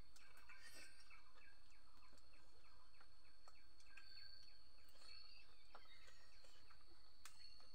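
Faint rural outdoor ambience: small birds chirping and a constant high insect whine over a low steady rumble, with a few soft clicks.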